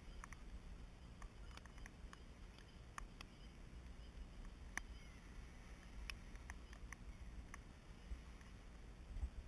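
Raindrops striking the quadcopter's onboard camera: sharp, irregular ticks, one or two a second, over a faint low rumble.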